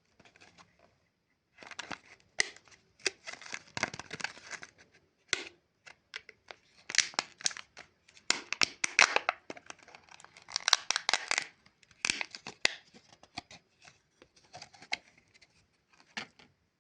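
Chupa Chups lollipop wrapper being torn and crinkled open: irregular crackling bursts with sharp crisp snaps, starting about a second and a half in and stopping shortly before the end.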